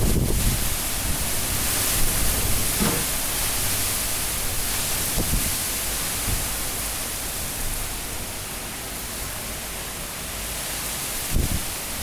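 Super Cyclone Amphan's high wind gusting as a dense, steady hiss. A low buffeting rumble at the start eases off through the middle, with a couple of brief low bumps near the end.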